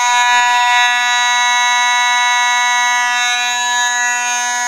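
Simplex 2901-9833 fire alarm horn sounding a loud, steady, unbroken buzzing tone: a Simplex 4207 panel put into alarm by a pulled pull station.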